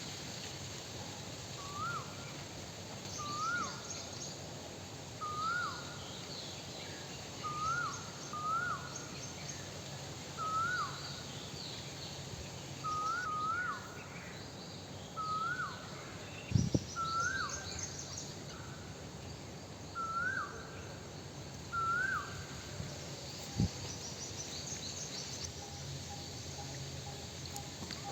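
Birds singing: one bird repeats a short call that rises and drops, about every two seconds and sometimes twice in quick succession, over fainter high chirps from other birds. Two sharp knocks break in, a loud one about two-thirds of the way through and a lighter one near the end.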